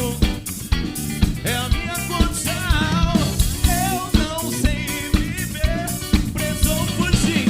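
A four-piece pop-rock band playing: drum kit keeping a steady beat, bass guitar and electric guitar, with a melodic line that bends and slides in pitch over them.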